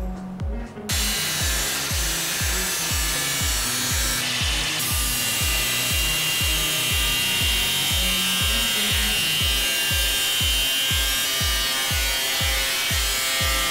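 Cordless angle grinder with a thin cut-off disc cutting thin sheet metal, a steady hiss with a high whine, starting about a second in. Under it runs background music with a steady low beat.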